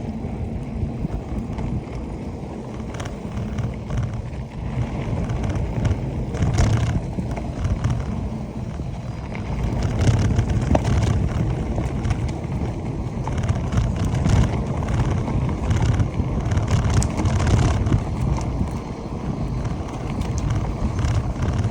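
Mountain bike ridden over a rough trail: wind buffeting the microphone, with frequent rattles and knocks from the bike over bumps.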